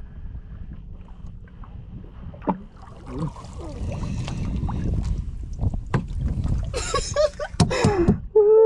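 Wind on the microphone and water moving around a small wooden outrigger boat at sea, a steady low rumble with a few knocks from handling gear in the boat. Brief loud voices come in near the end.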